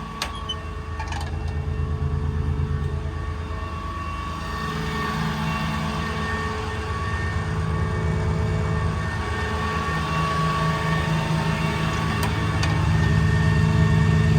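6.7 L Cummins diesel of a Ram 5500 idling steadily, a little louder near the end, with a couple of light clicks in the first second or so.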